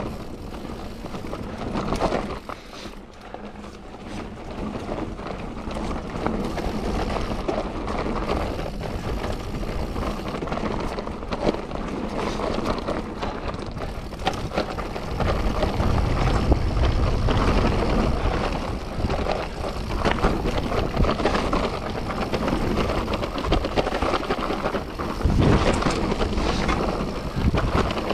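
Mountain bike riding down a rough trail: tyres rolling over stones and dirt, with constant clattering and rattling from the bike, and wind buffeting the microphone. The low rumble grows heavier about halfway through and again near the end.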